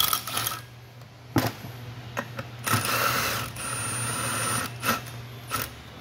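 Cordless driver run in short bursts and one longer run, turning a puller's centre screw to force a worn wheel hub off its shaft. A sharp metal click comes about a second and a half in.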